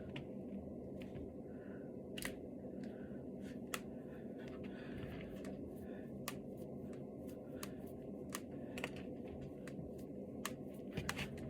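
Finger knuckles being cracked: sharp single pops every second or two, two close together near the end, over a steady background hum and hiss.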